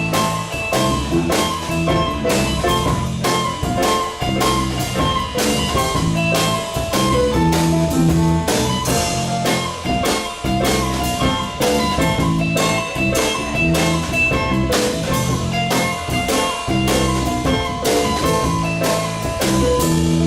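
Live band playing an instrumental passage between sung verses: guitar over a drum kit keeping a steady beat.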